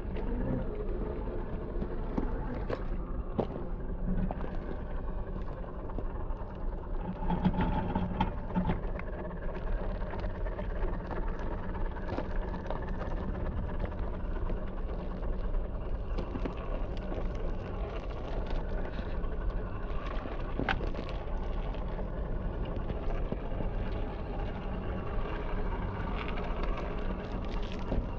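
Traxxas TRX-4 scale RC crawler driving slowly: steady whir of its electric motor and gearbox, with scattered small clicks and crunches from the tyres over the ground.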